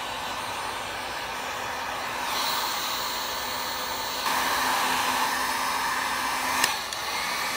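Hot-air blower running steadily, warming the cylinder of a new gas RC engine before break-in. It makes an even blowing noise with a faint hum, growing louder twice, with a single sharp click near the end.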